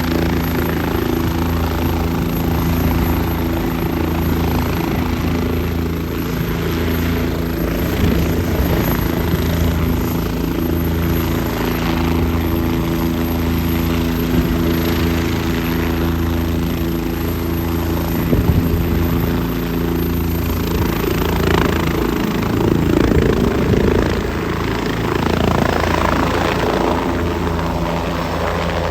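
Helicopter's rotor and engine running loud and steady.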